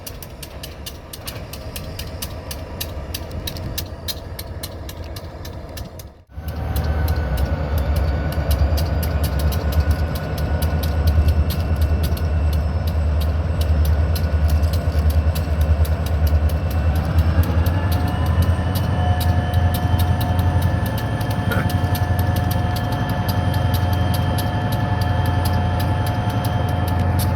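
Turbocharged diesel engine of a high-hood EMD GP switching locomotive running under load: a steady low pulsing rumble with a turbocharger whine over it. Around seventeen seconds in the whine rises in pitch and holds higher as the engine throttles up. There is a brief dropout about six seconds in.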